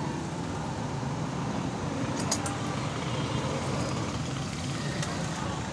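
Steady low rumble of motor traffic, with a couple of light clicks about two and five seconds in.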